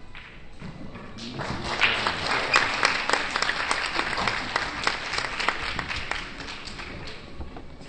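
Spectators applauding a pool shot. The clapping swells about a second in and tapers off near the end.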